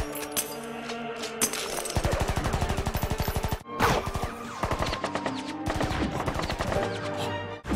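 Several bursts of rapid automatic gunfire, the longest running about a second and a half, with music playing underneath.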